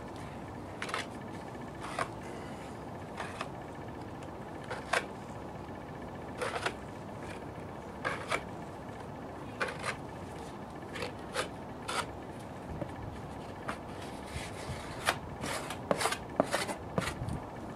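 Short scraping strokes of Bondo body filler being spread and worked onto a wooden 4x4 post, about one every second, coming quicker near the end, over a steady hiss.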